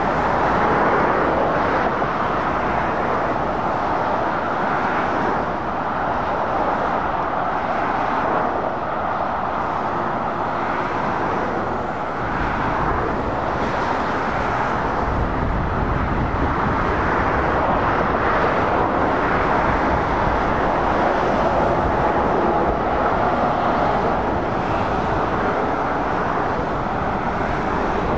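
Steady road traffic noise from lorries and cars on a dual carriageway: tyre roar and diesel engine rumble of passing trucks. The low rumble grows heavier about halfway through.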